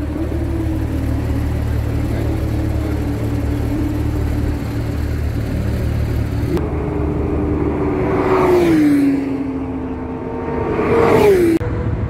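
Porsche sports car engines running as cars drive slowly down the pit lane, a steady low rumble underneath. Twice near the end a car passes close by, its engine note swelling and then falling in pitch as it goes past.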